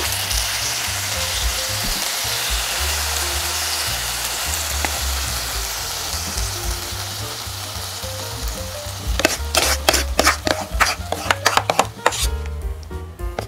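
Hot braising sauce sizzling steadily as it is spooned from the pot over fried crucian carp, slowly fading. About nine seconds in, a quick irregular run of sharp clicks and taps.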